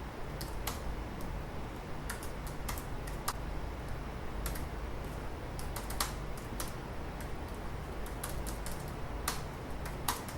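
Typing on a computer keyboard: irregular, uneven key clicks as code is entered.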